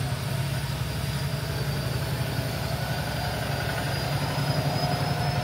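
A steady low mechanical hum, like an engine or motor running, with a faint steady high whine above it.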